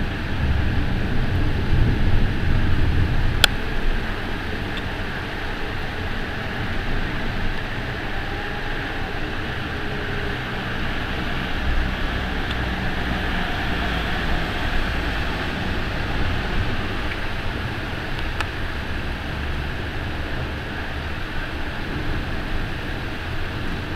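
Heavy storm rain and wind as a steady hiss, with the low rumble of a city bus driving through floodwater on the street, loudest in the first few seconds. A single sharp click about three seconds in.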